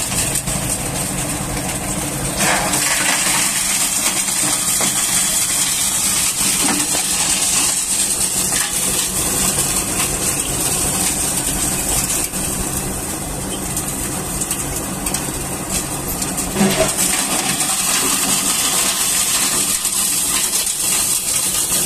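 Coal crusher running steadily with an engine under it: a continuous dense metallic rattle and hiss of coal being broken and thrown out, with a louder clatter about two and a half seconds in and again near the end.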